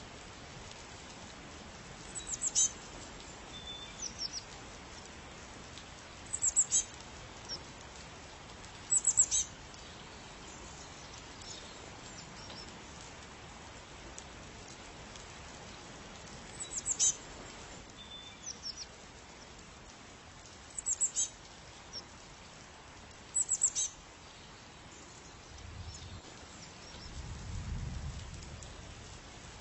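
A bird calling in short, very high-pitched bursts of a few quick chirps each, repeated every three or four seconds over a steady background hiss. A soft low rumble rises near the end.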